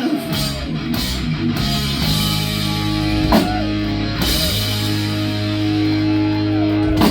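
Live rock band playing an instrumental passage without vocals: electric guitar and bass hold chords over a drum kit, with several cymbal crashes and a big hit near the end, typical of a song's closing.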